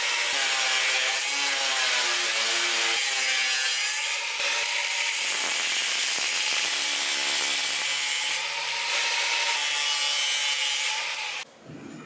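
Milwaukee angle grinder with a cut-off disc cutting through a metal rod: a loud, steady hiss of disc on metal over a motor whine that wavers in pitch under load. The sound stops suddenly near the end.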